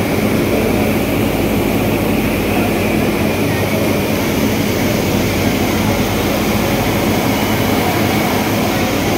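Steam locomotive of the Nilgiri Mountain Railway standing at the platform, giving a steady, unbroken roar and hiss with a low hum.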